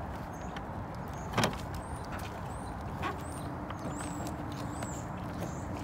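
Dodge Charger's plastic rear spoiler section being pried up off the trunk lid against its 3M adhesive tape, with a sharp click about a second and a half in and a smaller one near the three-second mark. Underneath is a steady low outdoor rumble, with faint high chirps.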